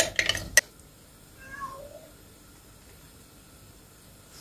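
A spoon clinks against a glass jar a few times as jam is scraped out, then a cat meows faintly once, a short call falling in pitch, about a second and a half in.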